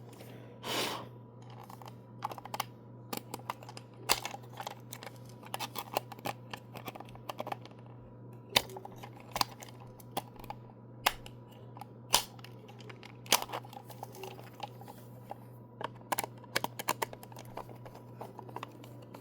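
Irregular small clicks, taps and rustles of hands handling a small plastic toy car and its battery parts, over a steady low hum.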